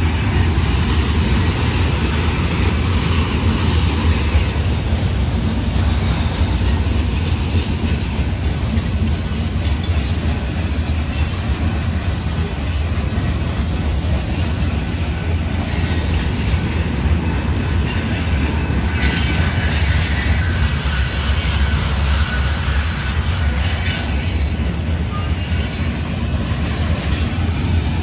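Loaded Union Pacific rock train's hopper cars rolling steadily past: a constant low rumble of steel wheels on rail. High-pitched wheel squeal comes in now and then in the second half.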